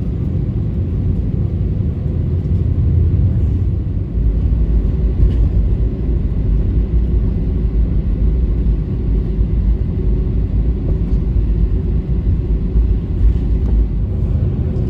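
Airbus A320 engines running at high power with the deep rumble of the aircraft rolling fast, heard from inside the cabin during the takeoff run. The low rumble grows heavier about four seconds in.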